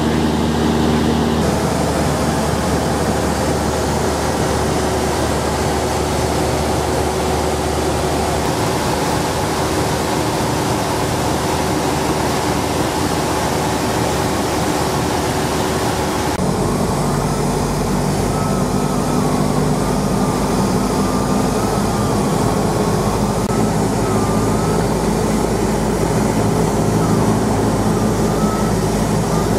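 Cessna 172's piston engine and propeller droning steadily, heard from inside the cabin. The drone's pitch and balance change abruptly twice, where clips are joined.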